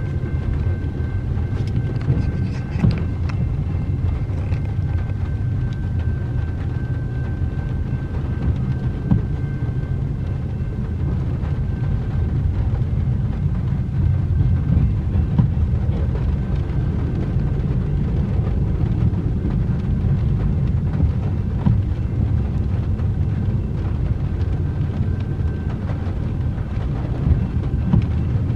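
Double-stack intermodal freight train rolling steadily past a grade crossing: a continuous low rumble of well cars on the rails with occasional clicks. Heard muffled from inside a car.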